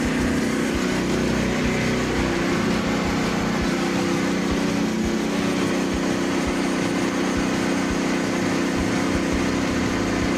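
Portable band sawmill running steadily on its engine, with an even drone and no pauses, as it saws an oak log into boards.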